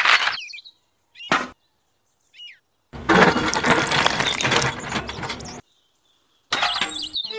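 Short cut-together bits of a miniature build: a little scraping, a few bird chirps in the gaps, then about two and a half seconds of noisy sloshing and rattling as a toy cement mixer drum tips wet cement into a small metal bucket.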